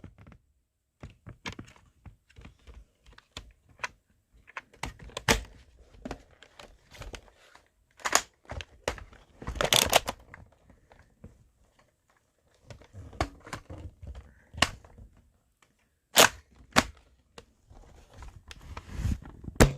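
Irregular plastic clicks, clacks and rattles of a Nerf Rival Roundhouse blaster being handled and reloaded, with a few sharper, louder snaps among them.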